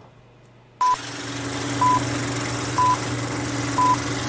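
Film countdown leader sound effect. About a second in, a steady hiss and low hum start, with a short high beep once every second, four beeps in all, marking the countdown numbers.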